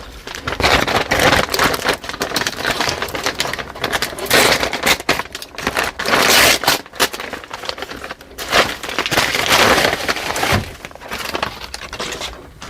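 A mailed package being torn open by hand: dense crinkling and crackling of the packaging, in repeated louder surges of tearing and rustling.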